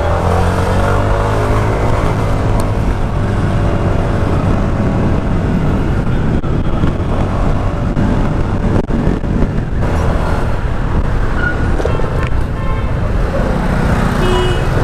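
Honda SH125i scooter riding through city traffic: its single-cylinder four-stroke engine runs steadily as a low hum under continuous rushing wind and road noise.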